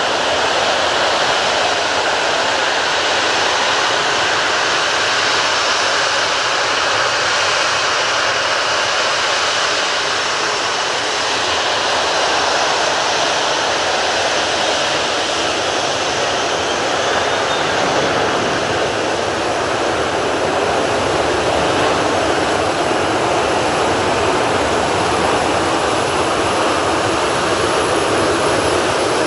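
Boeing 737-800's CFM56-7B turbofan engines running steadily at taxi power, a constant jet hum.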